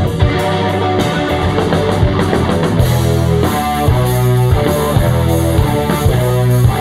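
A rock band playing live, with guitar over bass and drums, loud and steady.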